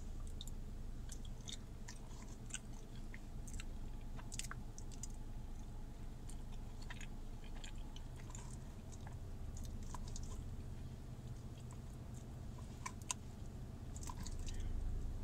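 A person chewing a mouthful of food close to the microphone, with many small wet clicks and crunches, over a steady low hum. One sharper click comes near the end.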